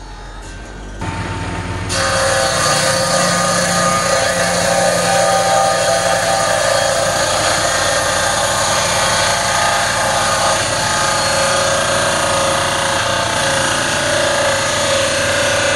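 Table saw running and cutting through a block of wood. It comes in about a second in, grows much louder a second later, and then holds steady.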